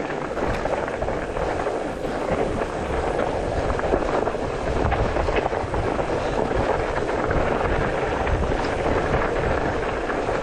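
Mountain bike rolling fast over rough, partly snow-covered dirt singletrack, heard from a handlebar-mounted camera: a steady rumble of tyres with constant rattling and small knocks from the bike and mount, and wind on the microphone.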